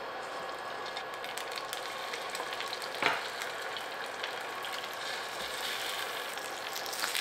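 Salted flounder fillets sizzling and crackling in hot oil as they are laid on a flat induction grill pan, with one sharp tap about three seconds in.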